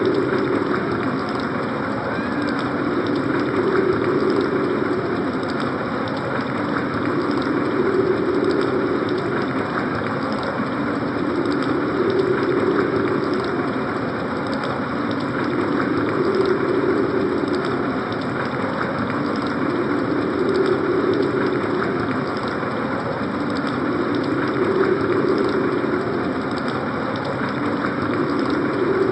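Synthesized winter storm sound effect from a Casio CT-X5000 keyboard: a steady rushing noise with a low, hollow swell that rises and falls about every four seconds, like gusts of wind.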